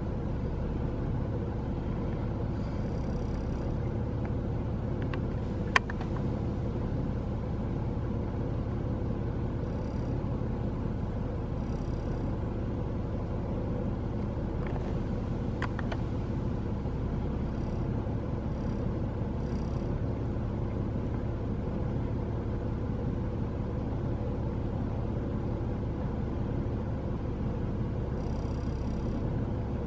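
Steady low outdoor rumble, with a sharp click about six seconds in and a few faint, high chirps now and then.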